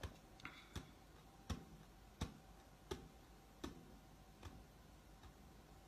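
Near silence with faint, evenly spaced ticks, about three every two seconds, fading out near the end.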